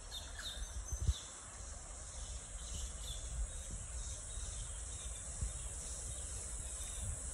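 Steady high-pitched chorus of insects, pulsing evenly, with a low rumble underneath and a single thump about a second in.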